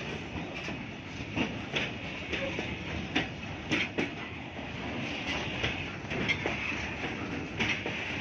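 Freight wagons of an Indian Railways goods train rolling past close by: a steady rumble of wheels on the rails, broken by irregular sharp clacks as the wheels cross rail joints.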